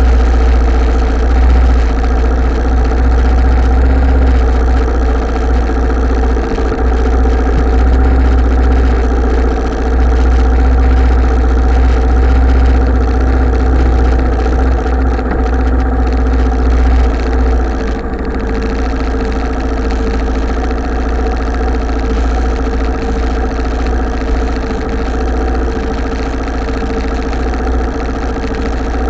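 Italika TC250 motorcycle's single-cylinder engine idling steadily while stopped, with strong deep low-end. It gets slightly quieter about two-thirds of the way through.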